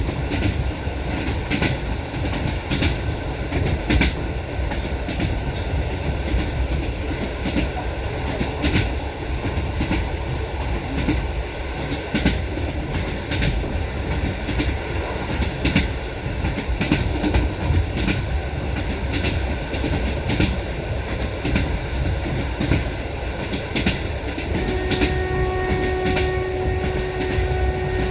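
Railway carriage wheels clattering over rail joints at speed: a run of sharp knocks over a steady rolling rumble. Near the end a steady pitched tone joins in.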